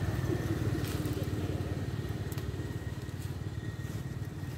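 A small engine running steadily with a low, even throb that fades slightly, with a few faint clicks over it.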